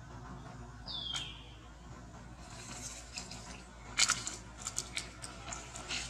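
A baby macaque gives one short high squeal that drops in pitch about a second in. From halfway on come sharp crackles and clicks, loudest about four seconds in, as the monkeys scuffle on dry leaves and dirt.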